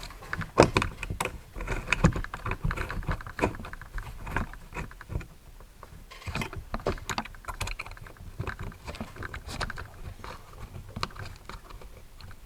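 Irregular small clicks, taps and rattles of tools and metal parts being handled while a brushless motor is fitted into an RC car chassis, busiest in the first few seconds.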